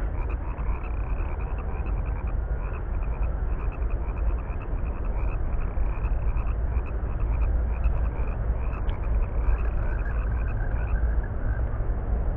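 Frogs calling from a pond in a dense, steady chorus. A rapid call repeats at about three pulses a second over a low rumble.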